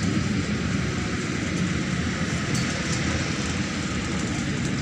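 Neman city bus under way, heard from inside the passenger cabin: a steady low engine drone mixed with road and body noise.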